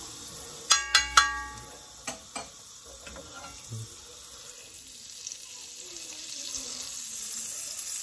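Three ringing metal clinks of kitchen utensils about a second in and a few lighter taps after, then ghee sizzling on a hot tawa, growing louder over the last few seconds.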